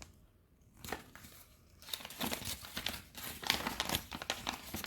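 Paper user manual being handled, rustling and crinkling. Almost quiet at first, with a brief rustle about a second in; steady crackly rustling starts about two seconds in.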